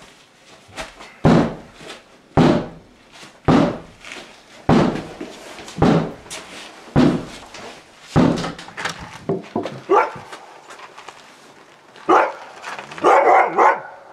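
A dog barking repeatedly, loud single barks about once a second, then a quicker run of barks near the end.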